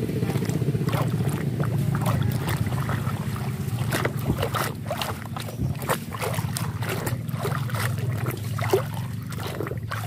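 Water splashing and sloshing in a plastic basin as a muddy toy cement mixer truck is dunked and scrubbed by hand, with many short splashes from about a second in. A steady low hum runs underneath.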